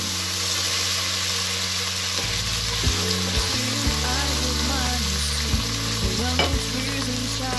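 Freshly added chopped tomatoes sizzling and frying in hot oil with browned onion, garlic and ginger in a stainless steel pot, stirred with a wooden spoon. The spoon knocks against the pot a few times.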